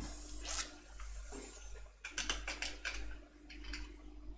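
Light clicks and small rattles of a swivel-type USB flash drive's plastic body and metal cover being handled and test-fitted together, with a quick cluster of clicks about two seconds in.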